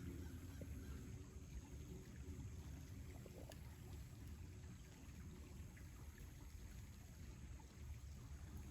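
Faint, steady flow of a small swamp stream, with a few soft ticks scattered through it.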